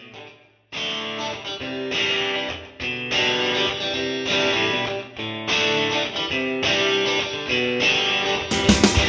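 Background music: guitar chords strummed in a repeating pattern. The music starts softly, fills out under a second in, and sharper hits join near the end.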